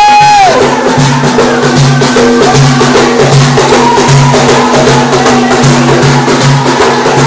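Bendir frame drums beaten by hand in a slow, steady pulse, a little over one stroke a second, under a low steady hum, in Chaoui rahaba music. A held sung note breaks off about half a second in.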